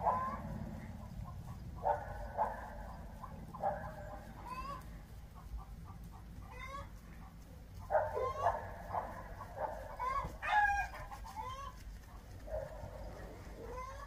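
Chickens clucking and calling: a string of short calls at uneven intervals, some rising sharply in pitch, loudest in bunches about 8 to 11 seconds in.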